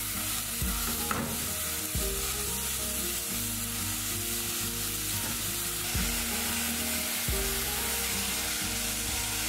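Ground beef sizzling as it fries in oil in a pan.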